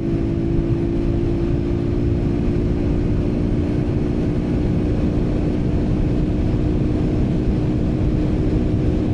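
Small motorbike engine running steadily at high revs near its top speed, with heavy wind rushing and buffeting across the clip-on microphone.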